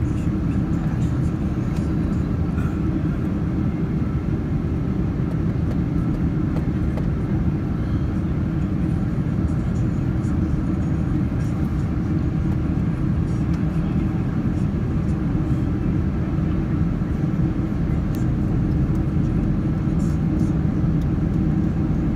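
Steady low rumble of a Boeing 767 airliner's engines and airflow, heard inside the passenger cabin at a window seat while on approach to land.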